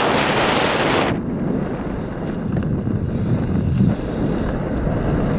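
Wind buffeting a helmet-mounted camera's microphone during parachute canopy flight: a steady low rumble, with a louder hissing rush for about the first second.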